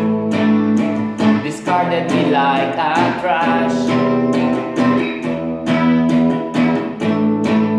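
Black Stratocaster-style electric guitar strummed in a steady rhythm of chords, about three to four strokes a second.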